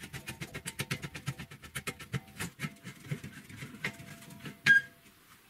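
Quick irregular metallic clicking and rattling from steel parts being handled and fastened on a steel frame, then one sharp ringing metal clank near the end.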